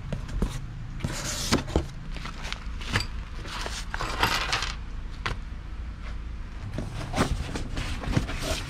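Packaging being handled: foam sheet and a padded envelope rustling, with several sharp clinks of small metal parts, over a steady low hum.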